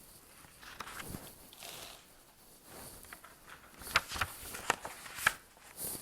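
Faint handling noise: soft rustling, then a quick run of sharp clicks or taps in the second half.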